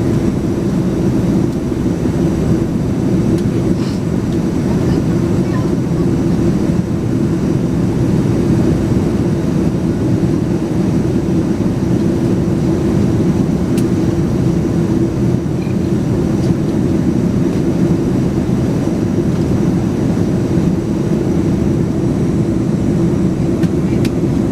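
Steady cabin drone of a Boeing 747-436 climbing out, its Rolls-Royce RB211 engines and rushing airflow heard from inside the passenger cabin, with a constant low hum under an even roar and a few faint ticks.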